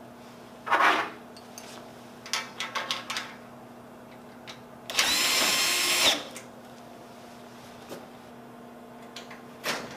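Cordless drill-driver motor running steadily for about a second, driving a screw into the steel enclosure frame. Before it comes a short loud burst and a quick run of metal clicks from handling the hardware, with a few more clicks near the end.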